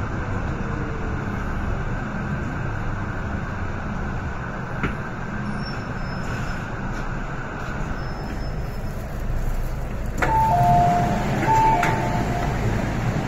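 MTR Tsuen Wan line M-train running with a steady rumble of wheels and motors, heard from inside the car. Near the end a two-note electronic chime, stepping from higher to lower, rings twice as the train comes into the platform.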